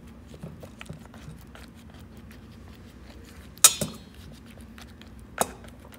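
Metal spoon clinking against a stainless steel pot while pressing down tea-soaked fabric: light taps in the first second or so, then two sharp ringing clinks, the first a little past halfway and the loudest, the second near the end.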